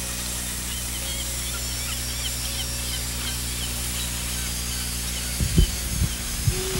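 Outdoor ambience over a steady low hum and hiss, with faint bird chirps during the first few seconds and a few low thumps near the end.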